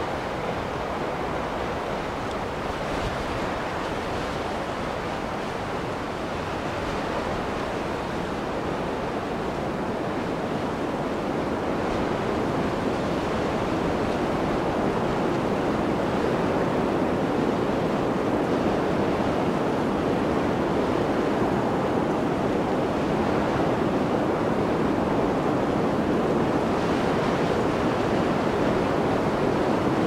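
Blizzard wind blowing in a steady rush with no gusting breaks, swelling gradually louder over the first half.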